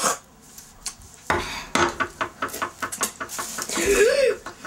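A quick run of sharp clicks and clatters, several a second, like kitchen utensils knocking, followed near the end by a short rising-and-falling squeal from a child.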